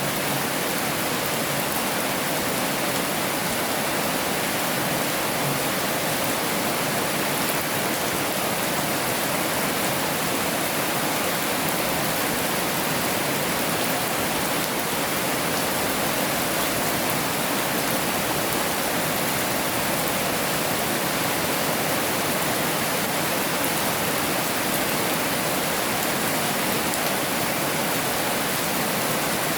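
Heavy rain falling: a dense, steady hiss with no breaks or distinct drops.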